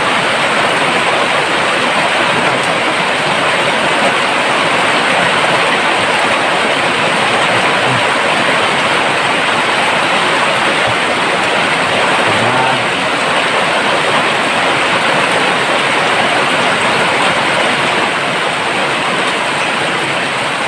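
Heavy rain pouring down, a loud, steady hiss that does not let up.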